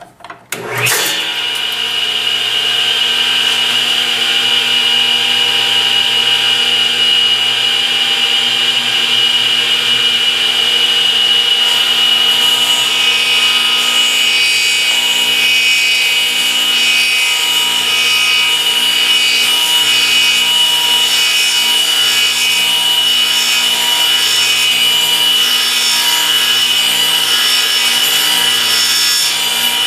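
Table saw switched on about a second in and running with a steady high whine, its spinning blade being raised up to cut through the plywood base of a crosscut sled.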